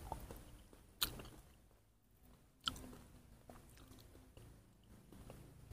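Faint, close wet chewing of soft, juicy fruit flesh, with three sharp mouth clicks or smacks: one at the start, one about a second in and one a little before the middle.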